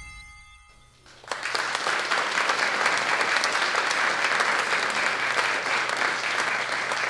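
The last ringing note of intro music fades out, then about a second in an audience breaks into steady applause.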